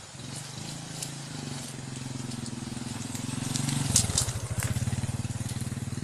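A small motorcycle engine approaching along a dirt path, growing louder. It passes close by about four seconds in, where its pitch drops, and keeps running with a throbbing exhaust.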